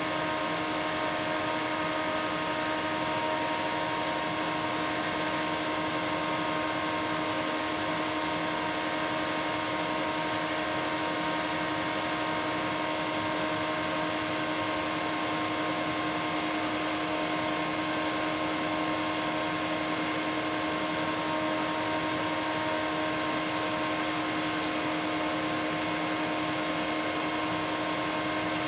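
Water boiling in a metal can heated by a homemade induction heater: a steady bubbling hiss over an even electrical hum made of several fixed tones.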